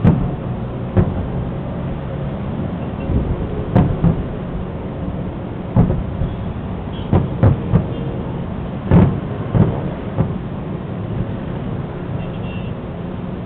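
Aerial fireworks shells bursting in a display: a dozen or so booms at irregular intervals, several coming in quick succession through the middle, over a steady low hum.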